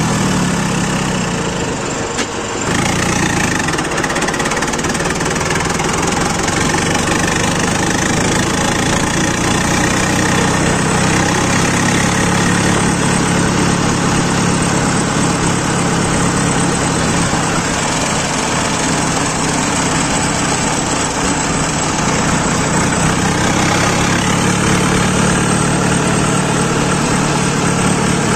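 Tractor diesel engine running steadily under way, heard from the driver's seat. The engine note drops briefly about two seconds in, then picks up again and holds.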